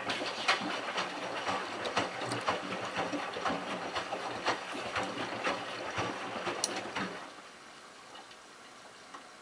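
Miele Touchtronic W3033 front-loader turning its drum in the delicate wash. The motor hums with water sloshing and regular ticks about twice a second for about seven seconds, then the drum stops and rests.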